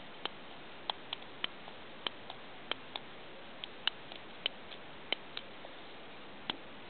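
Long-nosed butane utility lighter clicking again and again, its igniter snapping at an uneven pace of about two clicks a second, as it is worked at a firecracker fuse that has not yet caught.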